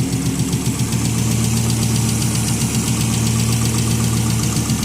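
Volvo 850 turbo's five-cylinder engine idling with a fast, regular ticking in time with the engine. The owner is unsure whether the tick comes from a lifter or a spark plug.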